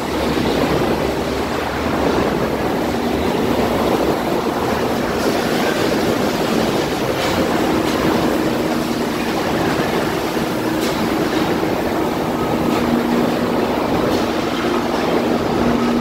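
Loud, steady din of factory-floor machinery in an auto parts plant, with a low hum running through it and a few faint knocks.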